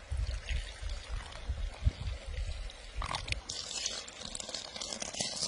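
A milky liquid poured into a wooden bowl, with uneven low rumbling, then from about three and a half seconds in a steady soft hiss as a flour mixture is poured from one wooden bowl into another.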